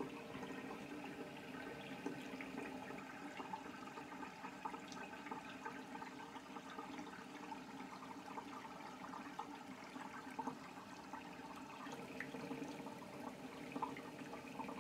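Water running steadily from a tap into a sink, with small scattered splashes and clicks.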